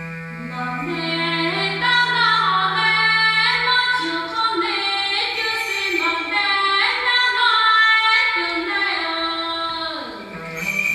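A woman singing a slow, ornamented Hmong-style melody solo, with the long reverberation of a cave chamber. A low held drone note sounds beneath her voice and stops about four seconds in.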